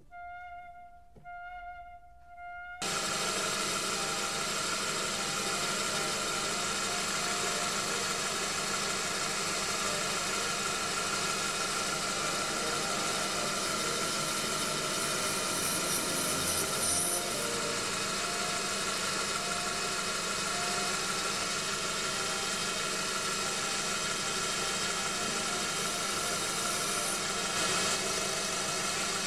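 Soft orchestral music, then about three seconds in a Proxxon PD 250/e mini lathe starts up abruptly and runs steadily while a parting tool cuts off excess brass from the spinning gear's bushing.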